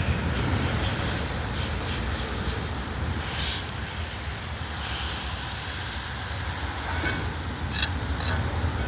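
Chops sizzling in a pan: a steady high hiss with a few sharp crackles from the middle on, over a steady low rumble.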